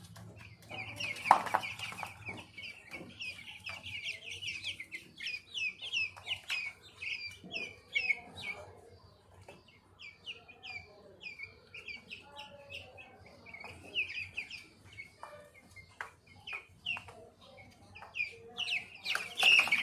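Fourteen-day-old chicks peeping rapidly in a continuous run of short, high, falling cheeps while a chick is held for eye and nose drop vaccination. There is a brief louder knock about a second in.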